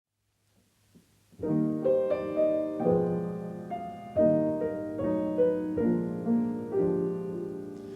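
Piano playing a slow introduction of sustained chords, starting after about a second and a half of silence.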